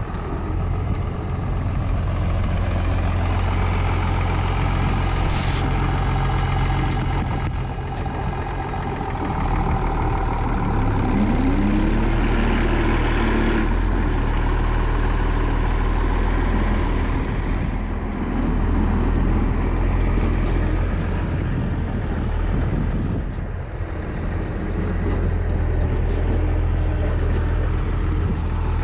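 International 856 tractor running steadily while pulling a New Holland forage chopper through grass, its engine pitch briefly rising and falling about halfway through.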